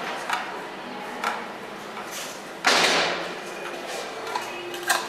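Handling noises at a lab bench: a few light clicks and knocks, and one loud, sudden rushing noise about half a second long a little past the middle.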